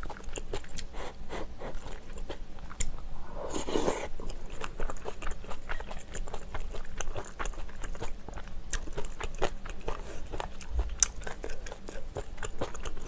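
Close-miked chewing and crunching of rice, kimchi stew and kimchi, a dense run of small wet clicks and crackles, with light taps of chopsticks and a spoon on the dishes.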